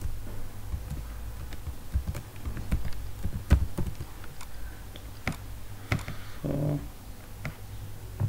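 Typing on a computer keyboard: irregular key clicks, a few of them louder keystrokes, over a steady low electrical hum.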